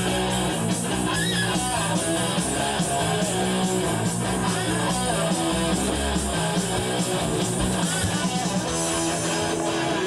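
Rock music with guitar and a steady beat; near the end it settles into a held chord.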